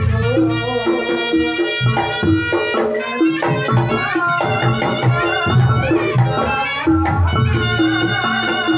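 Reog Ponorogo gamelan playing at full volume. A reedy, bending shawm (slompret) melody runs over kendang hand drums, with steady low drum and gong strokes beneath.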